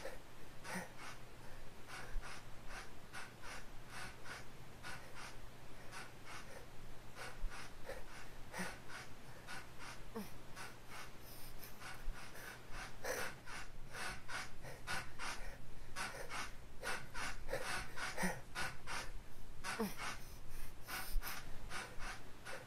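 Rapid, heavy breathing, about two to three breaths a second, over a low steady hum.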